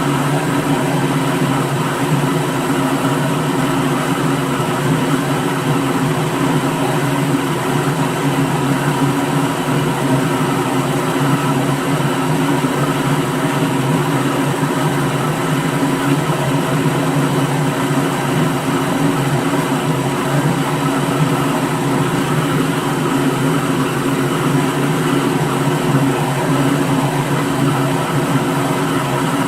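Electric kitchen blender motor running at a constant speed, with a steady whirring hum that does not change.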